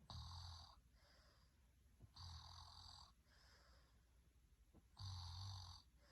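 Faint, regular snoring of a sleeper: three snores about two and a half seconds apart, each lasting under a second, with softer breaths between them.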